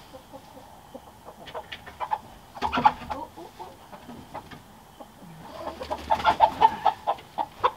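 Backyard chickens clucking: a short burst about two and a half seconds in, then a longer run of clucks from about five and a half seconds on.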